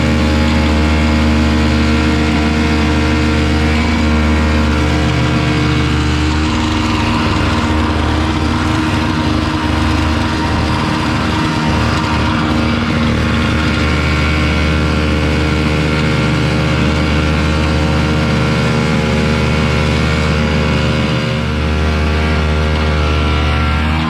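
A small snowblower's engine running steadily, its pitch shifting about six seconds in and again near the end as the load changes.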